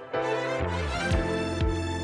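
Background music with a steady beat: sustained synth layers over a bass line, with a kick drum about twice a second.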